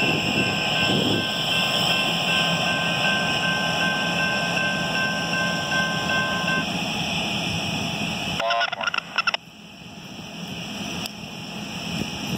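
Three diesel locomotives running light, engines and wheels rumbling steadily, with a thin steady whine over it for the first six seconds or so. About eight and a half seconds in the sound breaks up briefly and drops sharply, then builds again as the locomotives approach.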